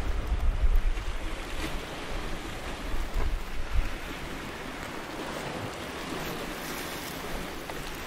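Sea surf washing steadily, with wind rumbling on the microphone, strongest in the first second.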